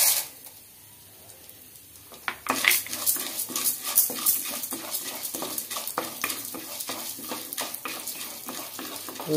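Chana dal grains pouring into a kadai of hot oil, the rush ending within half a second. After about two quiet seconds, a wooden spatula starts stirring the dal, the grains rattling and scraping across the pan over a light sizzle as they begin to roast.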